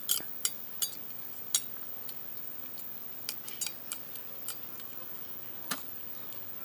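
Metal spoon and fork clinking and scraping against a metal plate of noodles. A cluster of sharp clinks comes in the first second and a half, then a few lighter ones are scattered through the rest.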